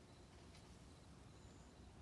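Near silence: faint outdoor background hiss with one short, faint, high bird note about one and a half seconds in.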